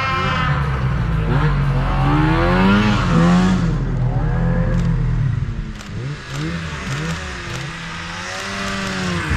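Two-stroke snowmobile engine revving in deep powder, its pitch rising and falling with the throttle. It eases off about six seconds in and picks up again near the end.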